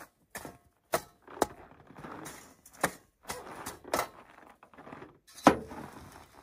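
Rummaging through stored food: a run of about eight sharp knocks and clicks as hard items are handled and set down, with rustling between them. The loudest knock comes about five and a half seconds in.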